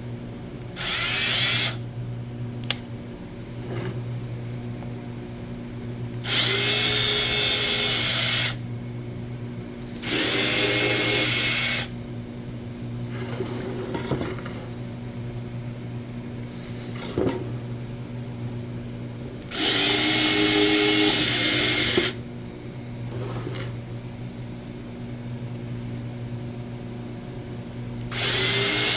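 Power drill driving screws in five short runs, each spinning up with a rising whine and stopping after one to two and a half seconds. A steady low hum sits underneath.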